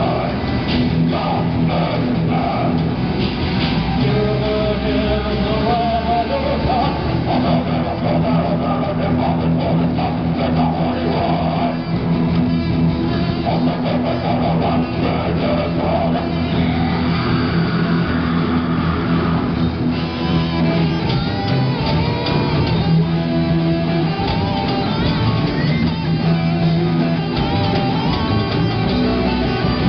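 Heavy metal band playing live: distorted electric guitars, bass and drums, with a singer on a microphone at times.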